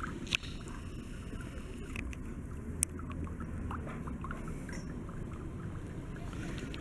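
Low, steady outdoor background noise with two short clicks, one just after the start and one near the middle.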